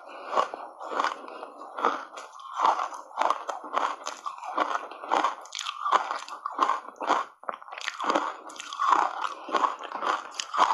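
Ice coated in matcha powder being bitten and chewed in big bites: a steady run of crisp crunches, about two a second.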